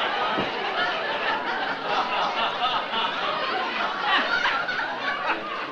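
Studio audience laughing, many people at once, at a steady level.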